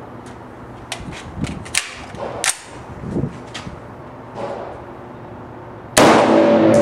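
A few scattered sharp clicks over a quiet background. About six seconds in, loud music comes in with heavy hits and held notes.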